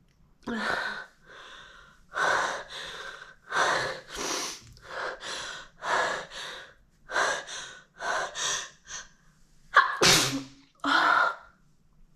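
A woman's sneeze build-up: a long run of hitching, gasping breaths, about one a second, then the sneeze, a sudden loud burst about ten seconds in with another a second later.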